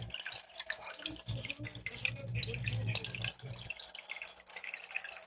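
Water trickling and dripping in an aquarium tank, with many small irregular splashes. A low hum runs underneath and stops about two-thirds of the way in.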